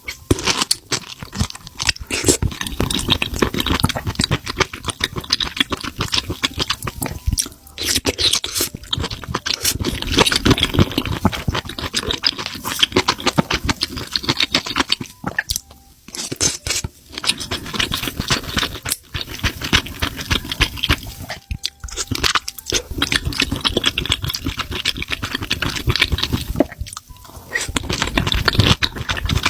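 Close-miked chewing of spicy mushrooms: dense, irregular crunching that stops briefly a few times.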